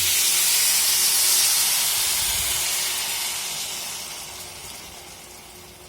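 Tamarind water poured into a pan of hot oil and fried onions, sizzling and hissing loudly at first and then dying down steadily.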